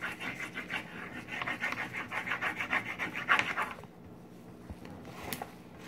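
Wax crayon scribbled quickly back and forth on a sheet of paper on a wooden table: a fast run of scratchy rubbing strokes, about five or six a second. It stops about two-thirds of the way through, and a single small tap follows.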